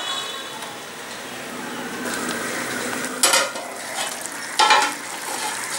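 Chicken curry sizzling and simmering under a lid in a pressure-cooker pot, a steady soft hiss. Then the metal lid is lifted off the pot with two short clanks, about three seconds in and again about a second and a half later.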